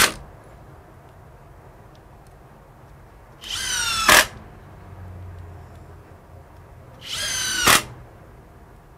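Klein BAT20-CD brushless cordless impact driver driving deck screws into a wooden board: two short runs of under a second each, both ending in a sharp louder peak, with the end of an earlier run right at the start.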